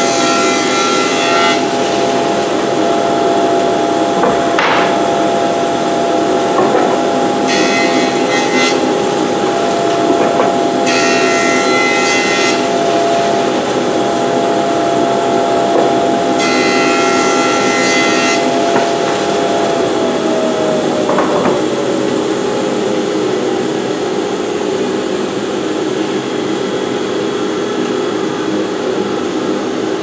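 Jointer with a Byrd Shelix helical cutterhead running, as boards are fed through on edge in four passes, each a one-to-two-second cutting hiss (the first ends about a second in). About twenty seconds in the jointer is switched off and its motor winds down with a falling whine, while a dust collector keeps running with a steady hum.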